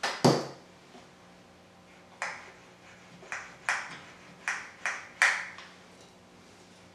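Aerosol contact cleaner sprayed in short bursts into a bass guitar's scratchy tone potentiometer to clean it: one loud burst right at the start, then about six shorter ones in quick succession a couple of seconds later.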